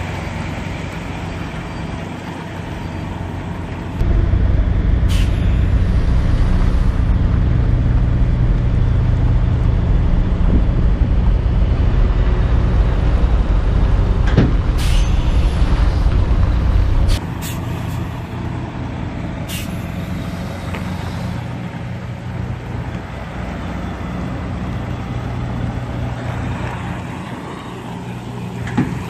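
Semi truck's diesel engine running at low speed, brought up to a louder, heavier rumble about four seconds in for some thirteen seconds while the truck reverses, then dropping back to idle. A few short sharp clicks come over it.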